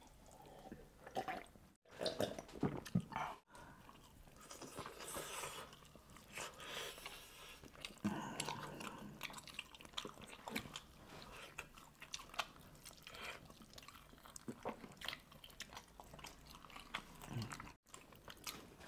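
Close-miked eating of whole roast chicken: irregular wet chewing and biting, with small crunches.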